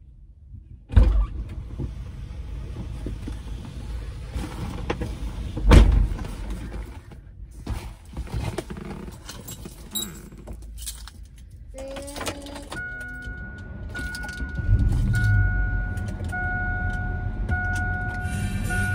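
Two heavy thumps about one and six seconds in, typical of an SUV's doors being shut, with rustling as someone settles into the driver's seat. Near the end a dashboard chime starts repeating about once a second, and the engine starts and runs steadily under it.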